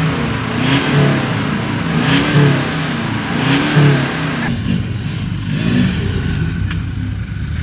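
A bakkie's engine revved over and over, each blip rising and falling in pitch, roughly a second apart. After about four and a half seconds the revving stops and a lower, steadier engine idle carries on.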